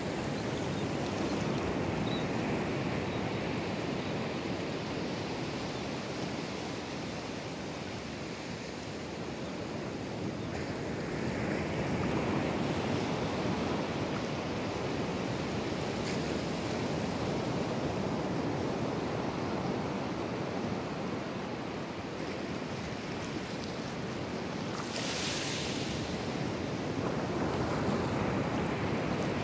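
Ocean surf breaking offshore and washing up the beach: a steady rushing noise that swells about twelve seconds in and again near the end, where a brief brighter hiss rises.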